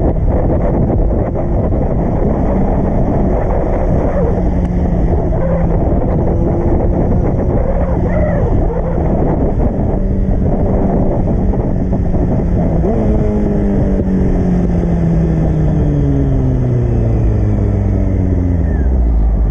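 Honda CBR600 F4i's inline-four engine running at steady revs, with wind rushing over the microphone. About two-thirds of the way in, the revs wind steadily down for several seconds as the bike slows.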